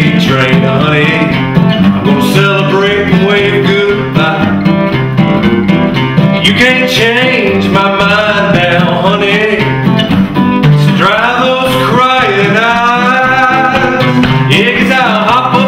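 Two acoustic guitars strummed together in a country song, with a man singing lead over them.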